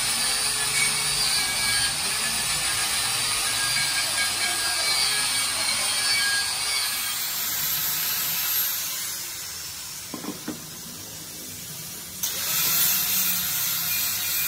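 Handheld electric sander with a sanding disc grinding the surface of an aluminium alloy wheel rim, a steady high rasping hiss. About two-thirds in it eases off for a few seconds, with a few light knocks, then the motor runs up and the sanding starts again.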